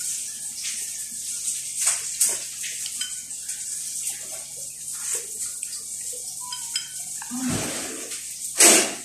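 A metal spoon dipping and clinking in a glass jar of tea, with small sips and slurps of tea from the spoon; two louder slurps come near the end, the last the loudest.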